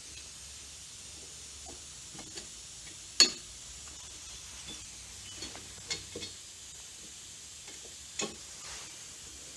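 Occasional light clicks and taps of hand tools on metal as a bolt is run into the engine, the sharpest about three seconds in, over a steady faint hiss.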